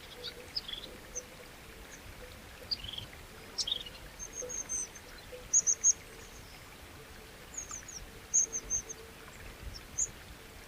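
Small birds chirping in short, high calls, the loudest a quick run of three chirps about halfway through, over the steady rush of flowing water.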